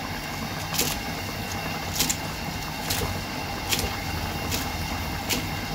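A cleaver chopping Chinese celery on a wooden chopping block, about six knocks roughly a second apart. A steady low hum runs underneath.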